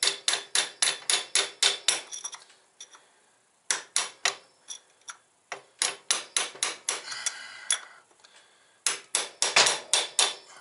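Hammer tapping a punch against the front sprocket's lock washer to bend its tab over onto the nut: sharp metallic taps, about four a second, in four runs with short pauses between them.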